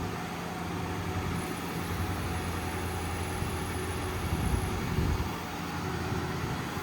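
Ford 6.7-litre Power Stroke V8 diesel engine running steadily, with a faint high whine for about three seconds in the middle.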